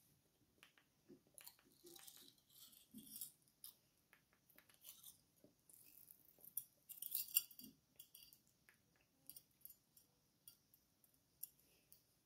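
Near silence: quiet room tone with faint scattered small clicks and a brief rustle about seven seconds in.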